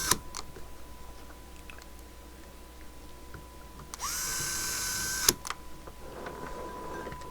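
Electric screwdriver with a preset torque setting driving a screw for about a second, about four seconds in, its motor speeding up to a steady whine and stopping with a sharp click when the set torque is reached. A click just at the start ends an earlier run, and a faint steady tone sounds underneath.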